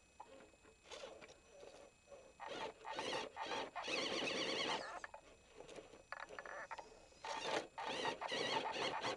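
Axial AX10 rock crawler's electric motor and geared drivetrain whining in spurts of throttle while the truck strains up a steep rock face, the longest spurt lasting a couple of seconds in the middle.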